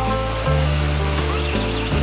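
Background music with held bass and chord notes that change about every second.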